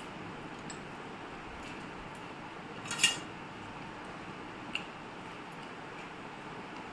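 Stainless steel thali dishes clinking as fingers scoop food from a small steel bowl on the steel plate. There is one sharp clink about three seconds in and a fainter tap a couple of seconds later, over a steady background hiss.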